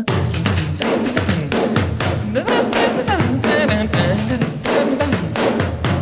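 Tambourine struck as a drum, a tight syncopated groove following the rhythm of a New Orleans piano line, with other music playing along.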